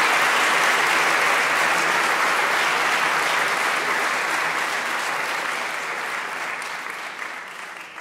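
Audience applauding steadily, the applause fading out near the end.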